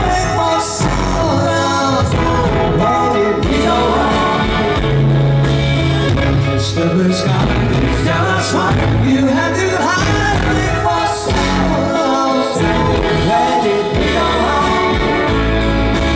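Live rock band playing at full volume, with violin and electric bass guitar, as heard from the audience.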